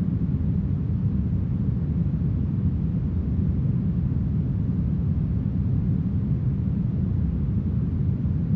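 Smoothed brown noise: a steady, even hiss with its weight deep in the bass and little treble, unchanging throughout.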